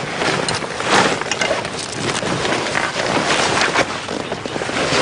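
Irregular rustling and scuffing of a backpack and gear being handled, with scattered crackles and scrapes.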